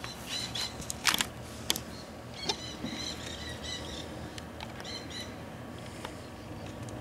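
A flock of plumed whistling ducks calling, many short high whistles and twitters repeated throughout. A few sharp clicks sound in the first couple of seconds, the loudest about a second in.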